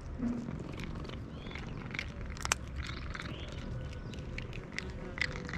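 Cat crunching dry kibble: irregular sharp crunches, one loudest about two and a half seconds in, over a steady low purr.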